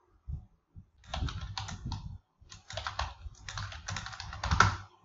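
Typing on a computer keyboard: a lone click, then three quick runs of keystrokes with short pauses between them.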